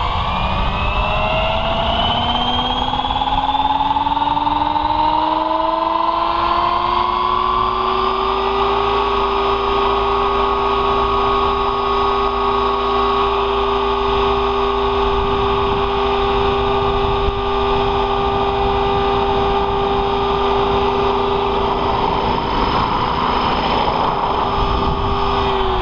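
Radio-controlled helicopter (T-Rex 600 mechanics in a Bell 222 scale fuselage) spooling up on the ground: a whine that rises in pitch for about nine seconds, holds steady at full rotor speed, then starts to wind down near the end.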